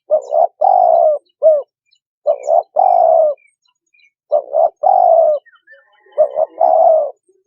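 Spotted dove cooing: four phrases about two seconds apart, each two short coos followed by a longer, falling coo.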